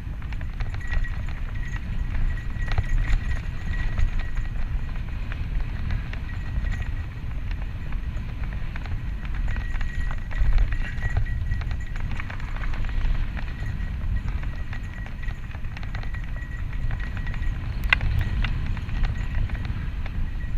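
Santa Cruz Tallboy LTc mountain bike descending a dirt singletrack at speed: tyres running over packed dirt and roots, the bike's chain and frame rattling over bumps, and wind buffeting the microphone as a heavy rumble. A sharp knock comes near the end.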